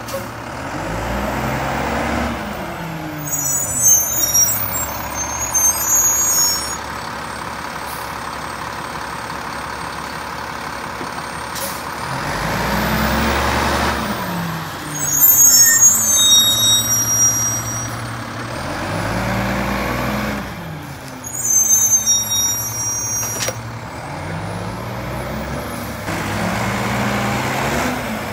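Mack LEU garbage truck's diesel engine repeatedly revving up and dropping back, about four times, with three short loud bursts of air-brake hiss and squeal in between.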